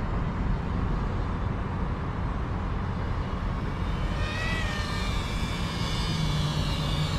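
FPV quadcopter's motors and propellers buzzing over steady background rumble, with a high whine that wavers in pitch coming in about four seconds in.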